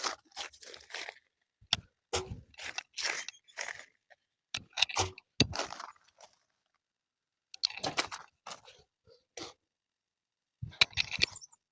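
Irregular crunching and scraping as solid ingredients are handled in a bucket, in short bursts separated by pauses of a second or so.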